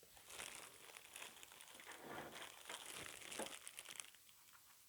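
Plastic packaging crinkling and rustling faintly as it is handled and unwrapped, in small irregular crackles.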